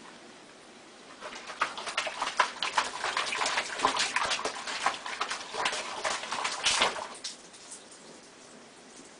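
A cat's paw splashing and slapping in a sink of soapy dishwater: a rapid, irregular run of small splashes starting about a second in and stopping about two seconds before the end.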